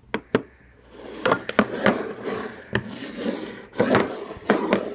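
Flathead screwdriver working a screw back into the pistol's frame: a couple of sharp clicks, then repeated short scraping strokes as the blade turns and slips in the screw slot.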